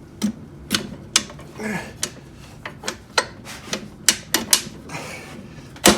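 Hood hinge spring on a 1970 Chevy truck being levered into place with a long Phillips screwdriver: about a dozen irregular sharp metal clicks and clanks, the loudest near the end.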